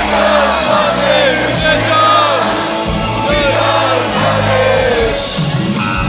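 Live pop-folk concert music over a large arena sound system, a sung vocal melody over steady bass, with shouts from the crowd mixed in.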